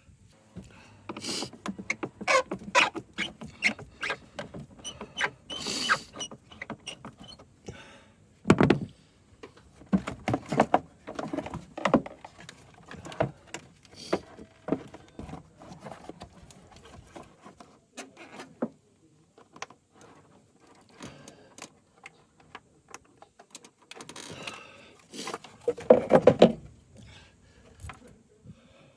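Irregular metallic clicks, knocks and rattles of hand tools and parts being handled during work on a car, with a sharper knock about nine seconds in and a louder clatter around twenty-six seconds in.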